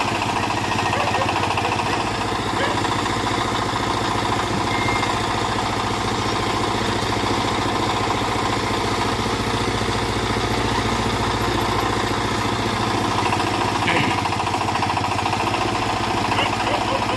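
Engine of a small backhoe running steadily at a constant speed, with a few faint knocks near the end.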